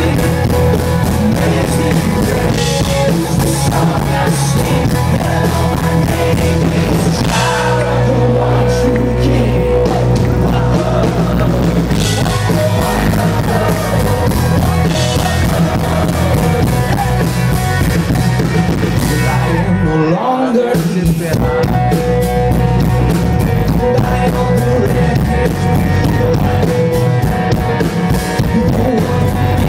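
Loud live rock music from a band on stage: electric guitars, drums and a lead singer, heard from within the audience. About two-thirds of the way through, the bass and drums drop out for a moment, then the full band comes back in.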